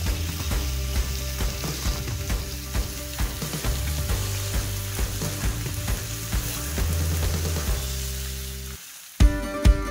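Bacon and sausage patties sizzling and crackling on a hot charcoal-fired steel griddle. Near the end the sizzle drops away and music with a strong beat cuts in.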